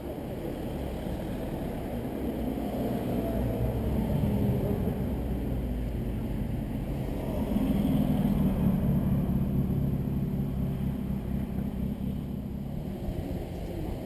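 Classic Triumph TR open sports car's four-cylinder engine passing close through a bend. The engine note builds to its loudest about eight seconds in, then fades as the car pulls away.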